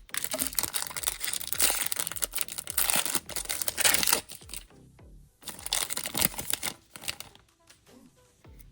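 Plastic foil trading-card pack wrapper crinkling and tearing as a pack is ripped open, in two spells of handling, the first about four seconds long and a shorter one a little past the middle, with music underneath.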